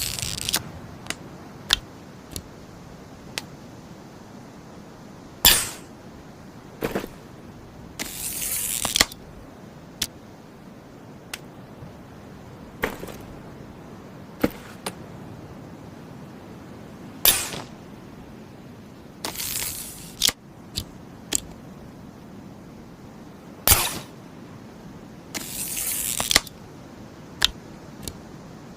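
Tactical crossbow being handled and shot: a series of sharp mechanical clicks and snaps, three of them much louder than the rest, with a rasping, hissing stretch of about a second after each loud snap.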